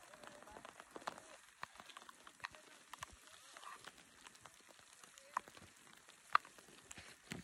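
Falling snow pattering faintly on the phone and clothing: an irregular crackle of small ticks, with a couple of sharper clicks about five and six seconds in.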